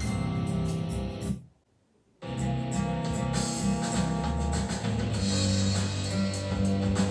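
A song with guitar and drums played back through a Bose portable speaker. About a second and a half in, the music drops to silence for under a second, then starts again.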